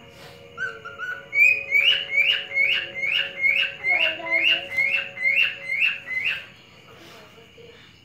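Male cockatiel whistling his courting song: a few short notes, then a rapid series of about a dozen short rising whistles at about three a second, stopping abruptly near the end.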